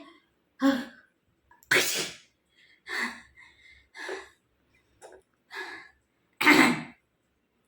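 A woman sneezing twice, the sneezes brought on by tickling the inside of her nostril with the corner of a handkerchief; the sneezes come about 2 s and 6.5 s in, with shorter, quieter breathy sounds between them.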